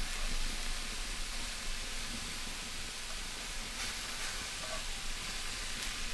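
Ground venison and pork belly frying in a cast iron skillet over hot coals, a steady sizzling hiss with a couple of faint pops.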